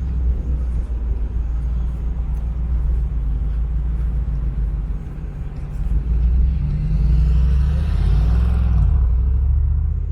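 Street traffic with a steady low rumble; from about six seconds in, a motor vehicle's engine grows louder and passes close by, its pitch rising and falling, with the hiss of tyres, before easing off near the end.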